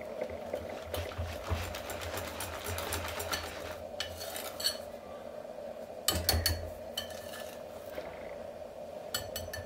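Wire whisk stirring and scraping a thick chocolate cream mixed with crushed cookie crumbs in a ceramic bowl, in uneven spells of clicking and scraping, loudest about six seconds in.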